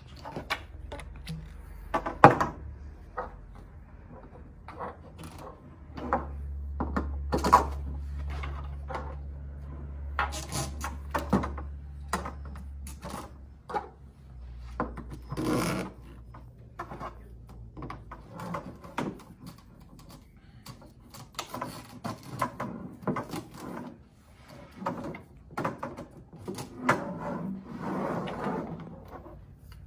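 3/4-inch PVC pipe segments being pushed and twisted into plastic 90-degree corner connectors: a run of irregular plastic clicks, knocks and scrapes as a pipe frame is put together.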